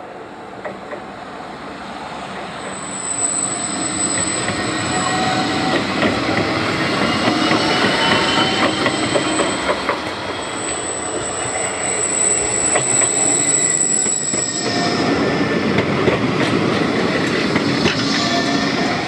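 Blackpool tram running on its rails, growing louder over the first few seconds. A high, steady wheel squeal runs from about three seconds in until about fifteen seconds, over the rolling rumble of the wheels, with scattered clicks of the wheels crossing rail joints.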